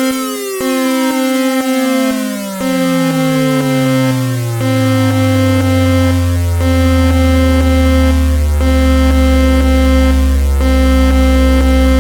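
Synthesized Emergency Alert System attention tone: a steady electronic alarm tone with a brief break about every two seconds, while another tone slides steadily down in pitch over the first five seconds and then holds as a deep drone.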